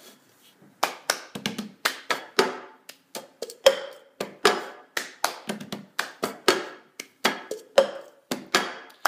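Rhythmic hand percussion: a patterned run of claps and knocks, about two to three hits a second, some with a short hollow ring, setting the beat for a song.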